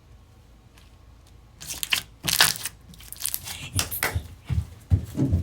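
Plastic slime packaging crinkling and crunching as it is handled and opened. It starts about a second and a half in and goes on in quick rustling bursts, with a few dull thumps near the end.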